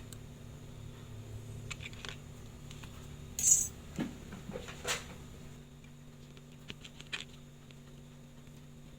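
Small metal tools and watch parts clicking and clinking on a repair bench, with a short sharp noise about three and a half seconds in being the loudest. A faint steady hum runs underneath.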